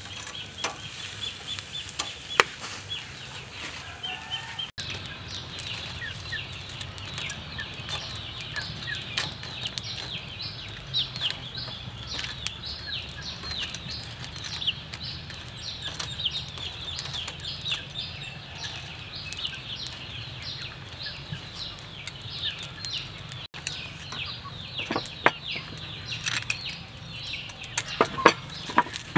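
Birds chirping rapidly in the background, many short high falling calls a second, with a few sharp clicks about two seconds in and several more near the end.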